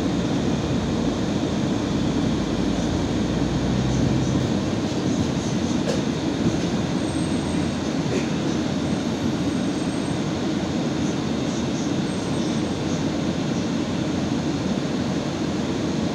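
Inside an Irisbus Citelis 12 m city bus under way: steady engine and road noise from the moving bus. A lower engine drone eases off about four seconds in.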